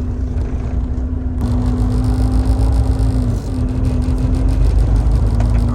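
Diesel semi tractor driving without a trailer, heard from inside the cab: a steady low engine and road rumble with a constant drone. The sound changes abruptly about a second and a half in.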